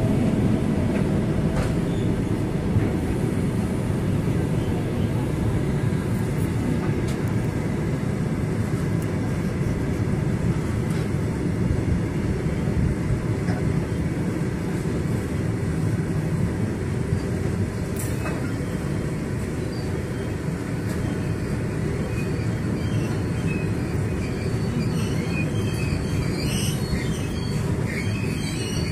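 Indian Railways freight train of covered goods wagons rolling steadily past close by, its wheels rumbling on the rails. A single sharp click comes a little past halfway, and brief high-pitched squeaks come near the end.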